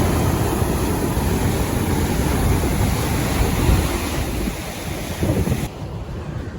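Ocean surf washing on a beach, with wind buffeting the microphone in a heavy rumble; the higher hiss drops away near the end.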